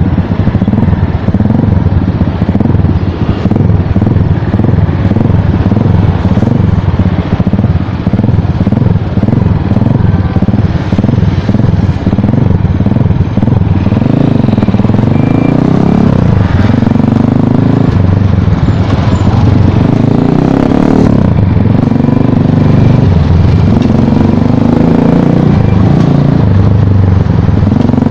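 Asian Beast 200cc dirt bike engine running under way, its pitch rising and falling repeatedly with the throttle, more often in the second half.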